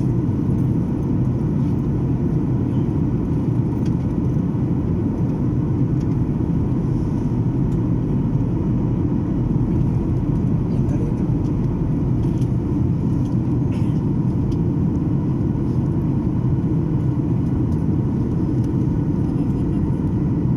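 Steady low rumble of a Boeing 737 airliner in flight, engine and airflow noise heard inside the passenger cabin.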